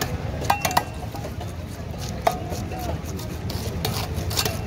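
Rohu fish being cut on a boti, a fixed upright blade on a wooden base: a few sharp knocks and clicks, some with a brief metallic ring, two close together about half a second in and others later, over a steady low background rumble.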